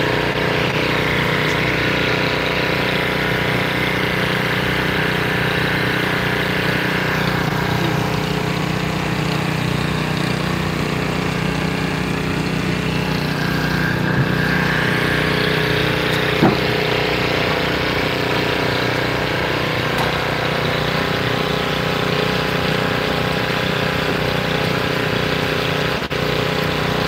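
An engine running steadily at idle, with a single short knock about sixteen seconds in.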